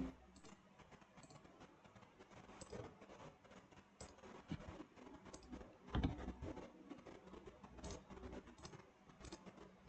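Faint, irregular clicks of a computer mouse and keyboard being worked, with a somewhat louder click about six seconds in.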